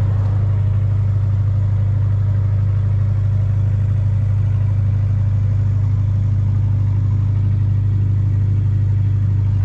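An engine running at a steady speed: a constant low hum that does not rise or fall.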